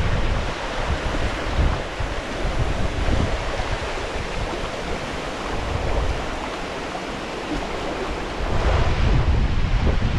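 Steady rush of water falling over a small weir, with wind buffeting the microphone; the low rumble gets louder near the end.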